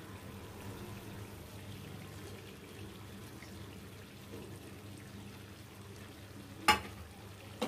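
Low, steady hiss and rumble of a kadai of chicken curry cooking on a lit gas stove, with a single sharp click or knock near the end.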